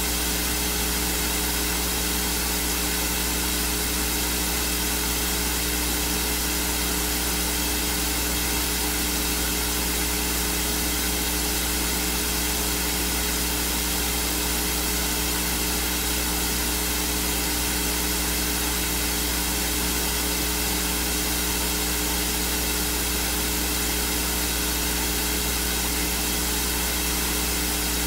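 Steady electrical hum and hiss with no voice, unchanging throughout. The recording feed has lost the reading, which goes on in the room but is not picked up.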